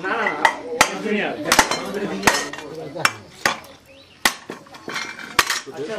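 Scrap brass being hammered on a stone floor: about eight sharp metallic clanks at uneven intervals, roughly one a second, as the metal is broken up for melting into bell metal.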